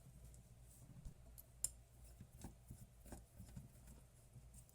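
Near silence with a few faint clicks and taps of small parts being handled, one sharper click about one and a half seconds in, likely a small watch circuit board being set into a clamp.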